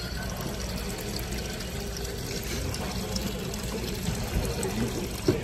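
Water from a refill station's spout running steadily into a glass bottle as it fills.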